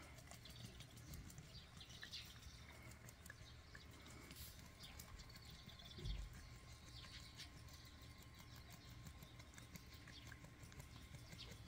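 Near silence: faint scattered small clicks and rustles, a few faint bird chirps, and one soft low thump about six seconds in.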